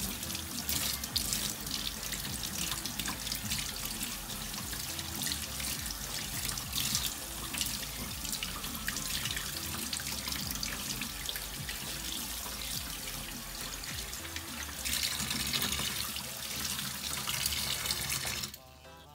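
Kitchen tap running onto a fish held under it in a stainless steel sink, the water splashing as the loose scales are rinsed off. The flow cuts off near the end.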